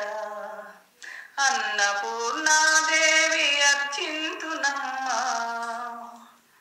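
A woman singing a Telugu devotional song, solo voice in long held and gliding phrases. There is a short break about a second in, and the phrase fades out near the end.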